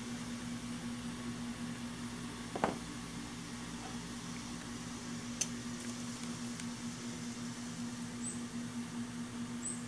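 A steady low mechanical hum over a faint background hiss, with a light click a little under 3 s in and another about halfway through. Two faint high chirps come near the end.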